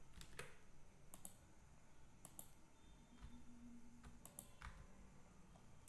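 Faint computer keyboard keystrokes: scattered clicks in small groups of two or three, about a second apart.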